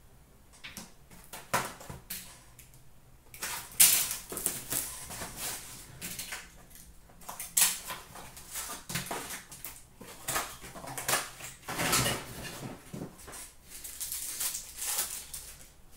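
Hands opening a box of Upper Deck Artifacts hockey cards and handling them: irregular rustling and crackling of packaging and pack wrappers, with cards sliding and a few sharp clicks and knocks, the sharpest about four and seven and a half seconds in.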